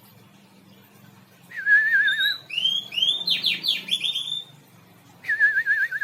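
Caged songbird singing: a warbling trill, then a run of quick sweeping notes, and the trill again near the end. The song comes without the 'kik' cough the bird had after its moult, which the keeper says has healed.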